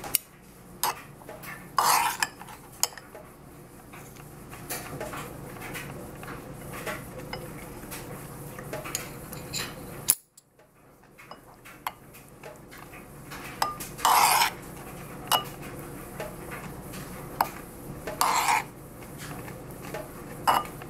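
Metal spoon stirring and scraping yogurt and cucumber in a ceramic bowl. It makes scattered sharp clinks on the bowl's sides and a few longer scrapes.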